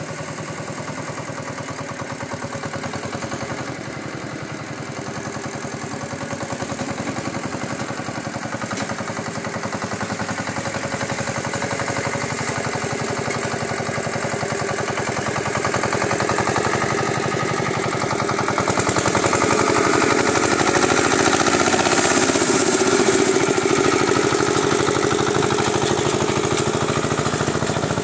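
Homemade tractor's 5 hp single-cylinder diesel engine running steadily with a rapid, regular firing beat as the tractor drives and works a tine cultivator. It grows louder a little past the middle and stays loud near the end.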